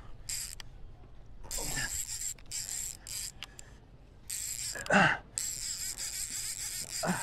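Fishing reel ratcheting in several bursts while a hooked fish, taken for a bluefish, pulls against the line. Short grunt-like vocal sounds come between the bursts, the loudest about five seconds in.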